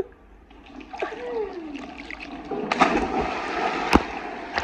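A person jumps into a swimming pool: water splashing and churning close to the microphone, building up over the second half, with one sharp slap about four seconds in.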